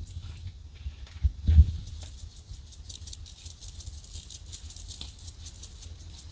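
Hand-twisted spice grinder grinding seasoning over meat: a fast, dry, crackling rattle that runs on steadily. A dull knock sounds about a second and a half in.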